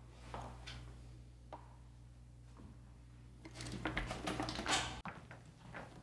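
Low steady hum of a quiet room with a few faint clicks. Past the middle comes about a second and a half of louder rustling and knocking, which cuts off suddenly about five seconds in.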